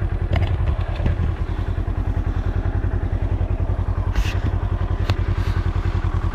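Polaris Ranger UTV engine running with a steady, fast-pulsing low rumble, and a few short knocks and rattles from the vehicle.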